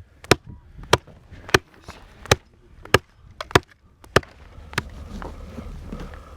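Chopping: about nine sharp blows of a blade into wood, roughly one every half second or so, stopping about five seconds in.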